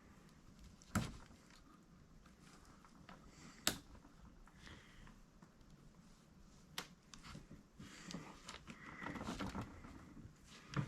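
Small metal parts of a VW rocker arm assembly being handled: three sharp, separate clicks, then light clinking and rustling near the end as the pieces are worked onto the rocker shaft.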